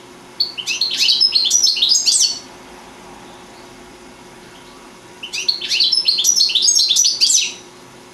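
European goldfinch singing: two phrases of quick, high twittering notes, each about two seconds long, with a pause of about three seconds between them.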